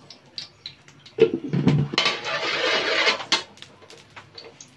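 A metal ladle clanks against a steel wok about a second in, then scrapes around the pan through the hot oil for about a second and a half.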